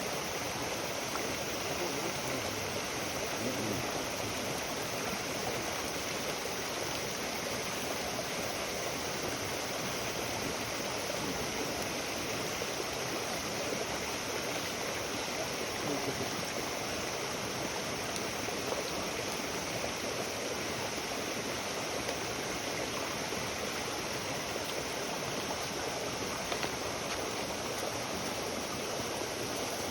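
Steady rushing water noise, like a flowing stream, at an even level throughout.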